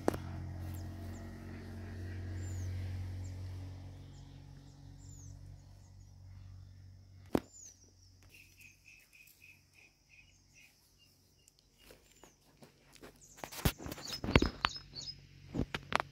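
Small birds calling outdoors: repeated short high chirps and a brief run of quick repeated notes. A low hum fades out over the first few seconds. Several sharp clicks and knocks come near the end and are the loudest sounds.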